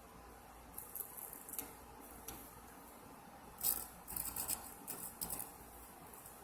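Faint, intermittent short scratchy scrapes and light clicks: a hot soldering iron tip being worked over the plastic during a plastic weld. The scrapes come in scattered strokes, busiest in the second half.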